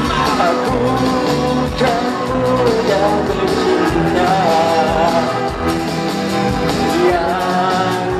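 A man singing into a microphone over band accompaniment, with held bass notes and a steady beat.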